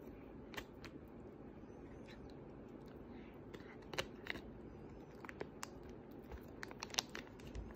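Ragdoll cat chewing and biting a grilled bonito stick, with irregular small crunchy clicks, the sharpest about four and seven seconds in.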